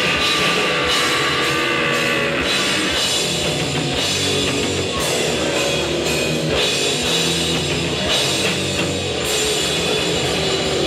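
Hardcore punk band playing live: electric guitar and drum kit at full volume, with no break in the playing.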